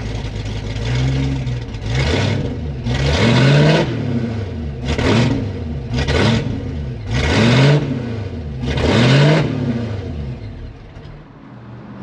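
Built 427 cubic-inch V8 engine idling, then blipped about six times in a row, each rev rising and falling back. It settles back down and quiets near the end.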